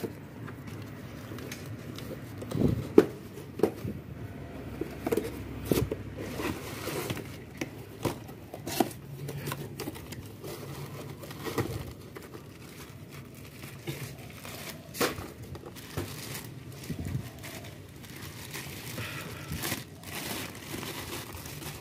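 Plastic bag and cardboard parts box crinkling and rustling as a new balancer shaft assembly is unpacked by hand, with scattered short knocks of parts being handled, the sharpest about three seconds in.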